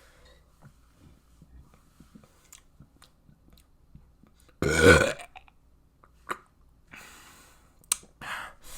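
A person burping once, loud and deep, for about half a second midway through, followed by a few quieter short sounds near the end.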